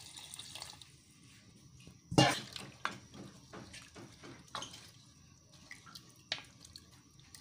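Water pouring into a pot of meat and fish, tailing off within the first second. Then a wooden spoon stirs the pieces, knocking against the pot several times; the loudest knock comes about two seconds in.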